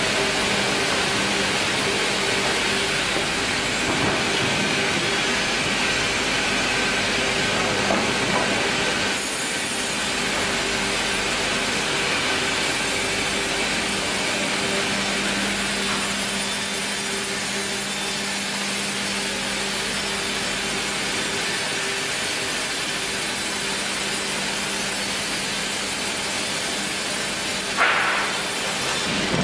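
Sawmill bandsaw line running: a steady hiss with a constant low machine hum. A brief loud knock comes near the end.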